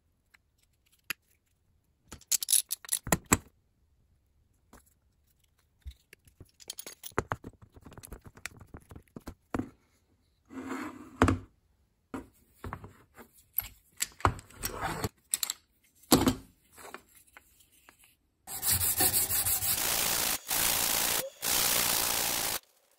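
Scattered clicks, taps and knocks of glued white-oak pieces being fitted together and set in a quick-grip bar clamp. Near the end comes the loudest part: a piece of oak rubbed back and forth by hand on sheet sandpaper laid flat on a board, in steady scratchy strokes about a second long.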